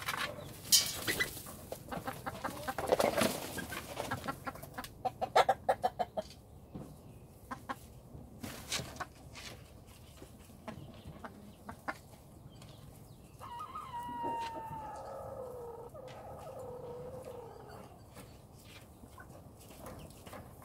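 Chickens clucking with scattered short taps over the first few seconds, then a rooster crowing once about two-thirds of the way through, a long call that falls steadily in pitch over about four seconds.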